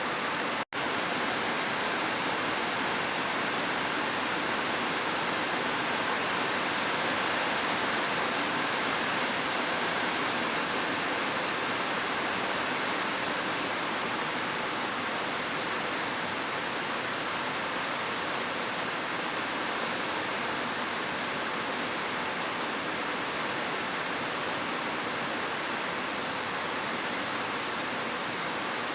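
Heavy rain falling, an even, steady hiss. It cuts out for an instant within the first second.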